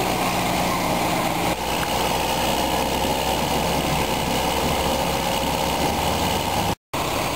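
John Deere 6930 tractor's six-cylinder diesel engine running at a steady speed, hitched to tow out a truck stuck in mud. The sound cuts out for a moment near the end.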